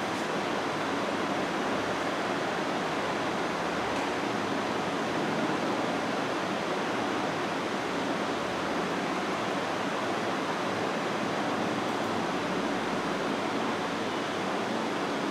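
Steady, even hiss of background noise, unchanging throughout.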